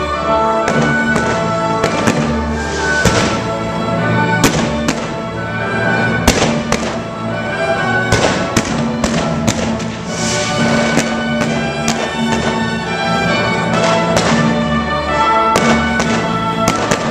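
Fireworks display: frequent sharp bangs of bursting shells, heard over loud music with long held notes.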